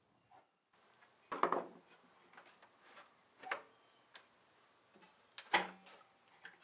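Spring-loaded metal leaf latch of a Broyhill Brasilia dining table being lifted and let go by hand: a handful of light metal clicks and clacks, the two loudest about a second and a half in and about five and a half seconds in.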